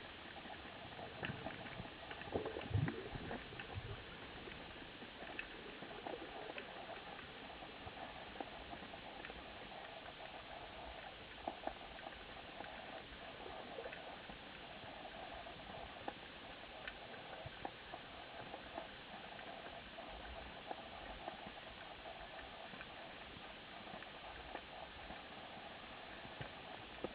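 Underwater ambience heard through a camera's underwater housing: a steady muffled hiss scattered with small crackling clicks and ticks, with a few low knocks about three seconds in.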